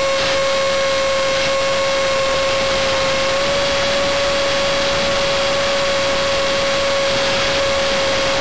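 Electric motor and propeller of an enRoute e-Lightning RC plane in flight, a steady high whine held at one pitch, picked up by a camera on the plane. Rushing wind noise over the microphone runs underneath.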